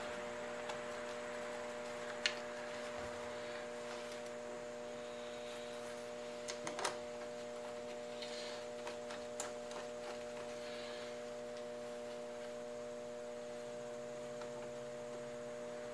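Steady electrical mains hum, with a few light metal clicks and taps as the steel chuck and T-bolts are handled on the rotary table.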